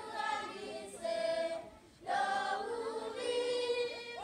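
A group of schoolchildren singing together without instruments, in sung phrases with a short pause about halfway through.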